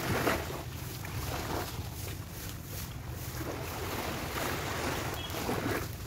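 Shoreline ambience: small waves washing on the sand and wind on the microphone over a steady low drone, with a brief louder swish at the very start.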